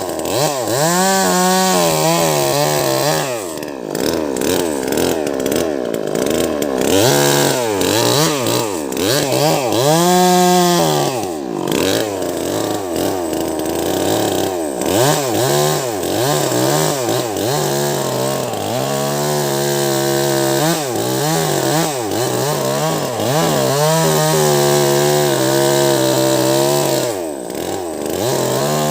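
Wagner 580 two-stroke chainsaw with a 16-inch bar cutting through a large log. The engine speed keeps rising and falling as it works under load, dipping several times as the chain bogs in the wood.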